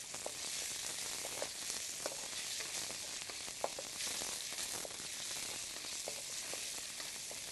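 Chopped chicken sizzling in hot oil in a wok, with light scrapes and taps of the utensil as it is stirred.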